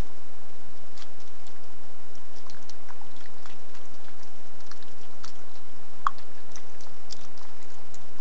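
Pine marten eating pieces of peanut butter sandwich on a wooden feeding table: small irregular clicks and ticks, with one sharper click about six seconds in, over a steady hiss.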